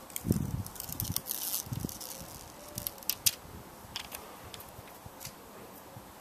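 Handling noise: a string of sharp clicks and short rustling scrapes, with a couple of dull thumps in the first two seconds and two loud clicks around three seconds in.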